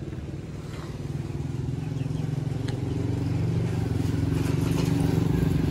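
A motor vehicle engine running steadily with a fast, even pulse, growing gradually louder.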